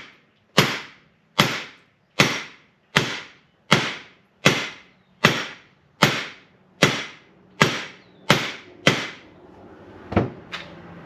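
Hammer tapping a PVC pipe used as a driver to seat a new fork bushing into a motorcycle fork slider: about a dozen evenly spaced sharp strikes, each ringing briefly, then two last taps near the end.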